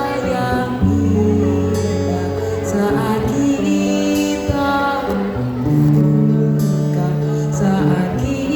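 A choir singing a slow, tender song: long held notes in sustained chords that change every second or two.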